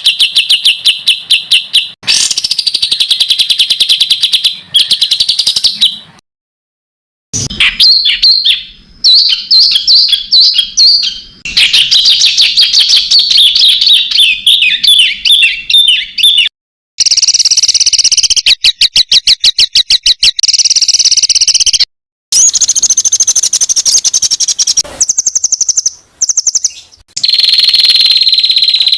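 A masteran tutor recording of songbird song spliced from several clips. It runs fast and dense, with rapid-fire chattering notes and trills, broken by abrupt cuts and a second of silence a few seconds in. Near the end comes a long, steady, high whistle.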